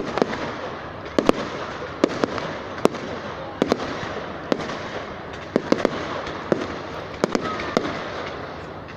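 Fireworks display going off: a run of sharp bangs and pops at irregular intervals, about one or two a second, over a steady hiss.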